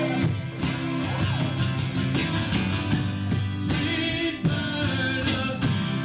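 Live band playing a song: strummed acoustic guitars over a steady percussion beat.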